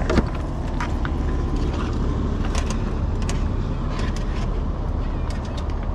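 Steady low rumble with light clicks and rustles of hands threading a nightcrawler onto a fishhook close to the microphone.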